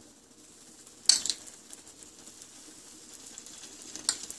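A spoon scooping a spiced chickpea mixture out of a bowl and onto buns, with one sharp clink about a second in and a smaller one near the end, over a faint steady hiss.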